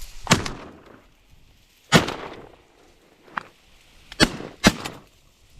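Shotgun blasts from duck hunters firing at passing ducks: four loud shots at irregular spacing, the last two about half a second apart, each with a short echo trailing after it.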